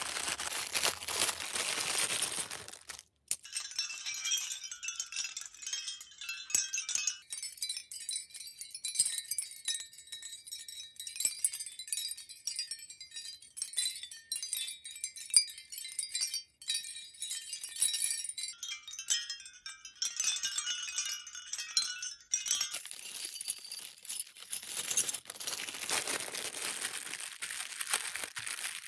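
Clear plastic packaging crinkling, then a mother-of-pearl shell mobile swaying, its thin shell pieces clinking against each other in a light, high tinkling like a wind chime. About three quarters of the way through, the tinkling gives way to plastic crinkling again.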